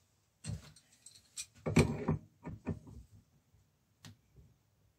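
A run of sharp metal clicks and clinks from a hand tool working the coupler nut of a torque wrench held in a vise, as the nut is screwed down and tightened. The knocks come irregularly, loudest about two seconds in, with one more click near the end.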